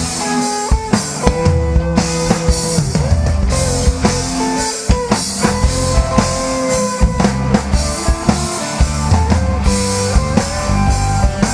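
Live pop-rock band playing an instrumental break: drum kit keeping a steady beat under a bass line, with a lead instrument playing a sustained melody that slides between notes.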